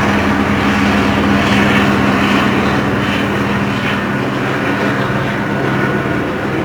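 Police helicopter flying low overhead, its engine and rotors making a loud steady drone with a low, even hum. The noise is unusually loud, enough that the onlooker feared the helicopter was about to fall.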